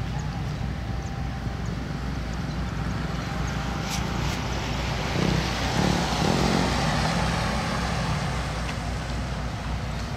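Engine of a utility bucket truck running steadily, swelling louder for a couple of seconds about halfway through, with a couple of sharp clicks about four seconds in.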